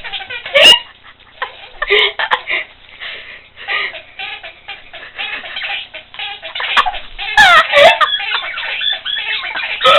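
A young woman laughing uncontrollably in high, squealing bursts, loudest about seven and a half seconds in.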